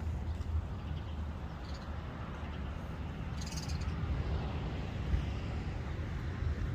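Steady low rumble of a moving vehicle, engine and road noise, with a brief high hiss about halfway through.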